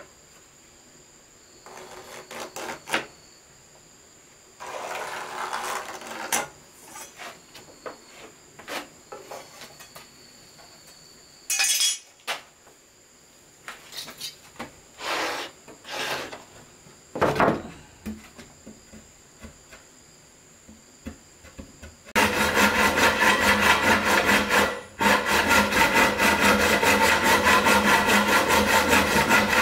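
Scattered knocks and scrapes of wood being handled and worked, then, about two-thirds of the way in, a saw starts cutting through wood with a fast, continuous rasping, broken once by a short pause.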